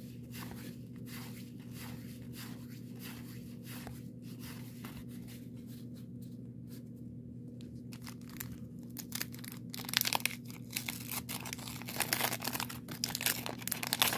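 Baseball cards being thumbed through one at a time with soft, evenly spaced clicks, then, about nine seconds in, a 1990 Donruss wax pack being torn open, its wax-paper wrapper crinkling and tearing loudly.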